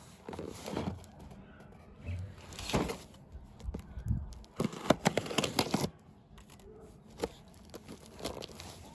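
Packaging being handled and torn open: irregular rustling, crinkling and tearing in short bursts, with a few sharp clicks or knocks.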